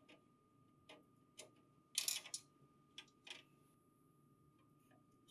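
Faint, scattered light clicks and taps of a flathead screwdriver and screws against the sheet-metal paper guide inside a printer paper tray, about half a dozen, the loudest a short cluster about two seconds in.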